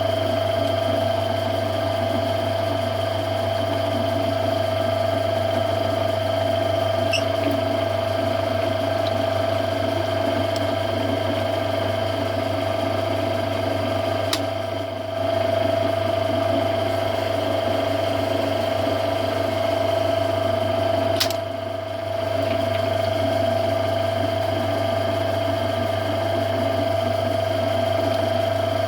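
Metal lathe running steadily while an internal thread is single-point cut, giving a constant hum with a steady whine. Two sharp clicks come about seven seconds apart, around the middle.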